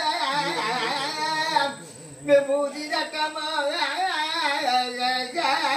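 A man singing a Carnatic-style virutham, a free-rhythm devotional verse, his voice bending and wavering through ornamented phrases. He pauses briefly for breath about two seconds in.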